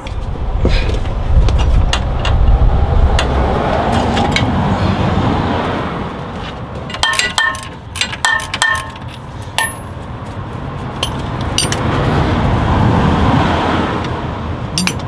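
Two spanners working a seized 24 mm panhard arm nut and bolt loose: a run of sharp metal clinks and short ringing taps in the middle, with a steady rushing noise before and after.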